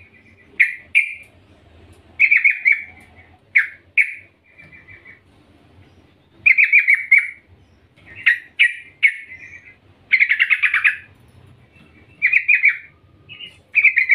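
Yellow-vented bulbul (trucukan) calling: short bubbling chirps in quick groups of two to four, with pauses between, and a longer trilled phrase about ten seconds in. The uploader presents it as a female calling to a male.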